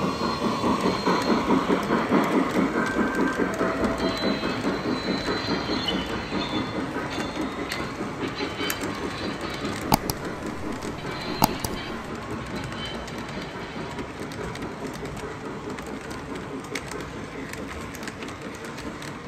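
O-gauge model freight train cars rolling by on three-rail track, wheels clattering in a fast rhythm over the rail joints and turnout, growing gradually fainter as the train passes. Two sharp clicks stand out about ten and eleven and a half seconds in.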